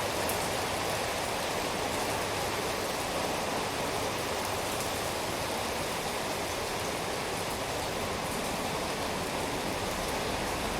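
Steady rain falling, an even hiss of noise with faint scattered drop ticks.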